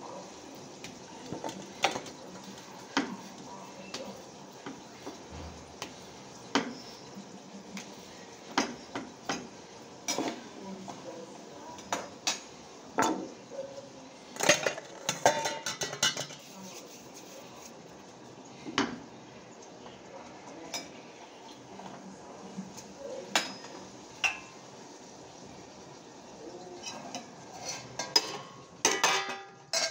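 Metal kitchen utensils and steel pots clinking and knocking: scattered single taps, with busier runs of clatter about halfway through and again near the end.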